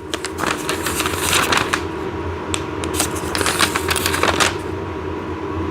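Paper pages of an instruction manual being turned and handled: crisp rustling and crinkling in several short bursts, over a steady low hum.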